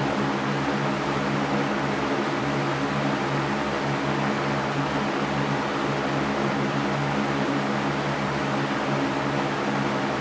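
Electric fan running steadily: an even whooshing noise with a low motor hum beneath it.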